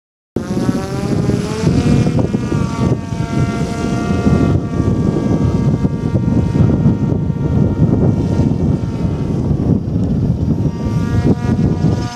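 RC model autogyro's motor and propeller whining in flight, starting suddenly and rising in pitch over the first couple of seconds, then holding a steady pitch with small changes as it flies.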